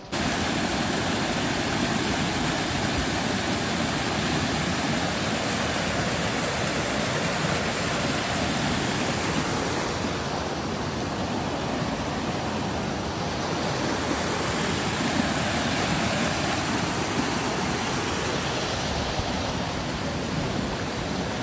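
Steady rushing of a rain-fed stream of water running down over rocks.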